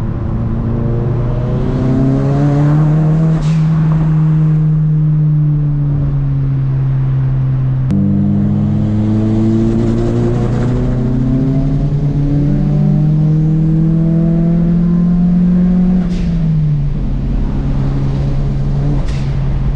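Nissan Silvia PS13's engine heard from inside the cabin while driving on the open road, its revs climbing and settling as the car accelerates. The engine note changes suddenly about eight seconds in, climbs again, then drops off near the end as the throttle eases.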